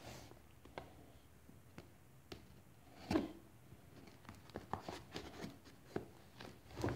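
A small cardboard mailing box being handled and shifted by hand on a wooden table: faint scattered taps and scrapes, with one louder scrape about three seconds in.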